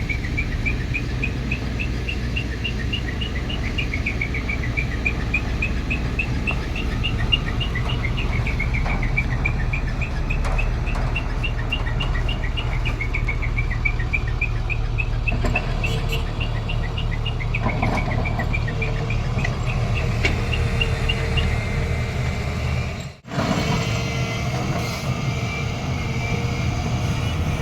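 Heavy diesel earthmoving machinery running steadily with a deep rumble. Over it comes a long run of quick high chirps in repeated rising and falling phrases, which stop about 21 seconds in. A brief break comes about 23 seconds in, after which the engine continues.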